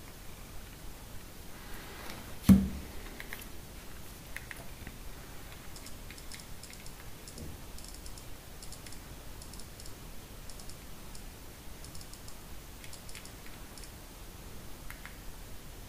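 Small, faint clicks of a BlackBerry Bold's keys and trackball being pressed while navigating menus, coming in quick clusters. A single sharp knock, much louder than the rest, about two and a half seconds in.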